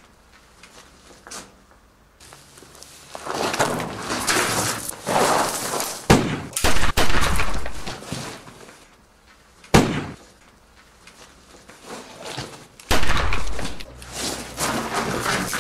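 A fight: scuffling noise with several sharp hits, the loudest about six seconds in and again near ten seconds, as a man is knocked to the ground.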